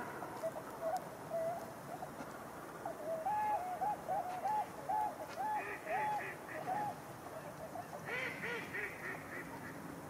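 A large flock of ducks and swans calling on the river: a run of repeated pitched call notes, about two a second, through the middle, then a burst of higher, falling calls near the end.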